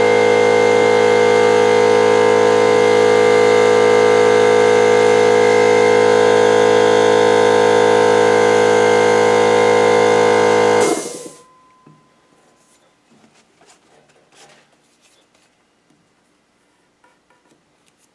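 A lathe and a pencil air die grinder run steadily while truing the jaws of a three-jaw chuck: a loud, even whine with hiss, which cuts off abruptly about 11 seconds in. Faint clicks of handling on the chuck follow.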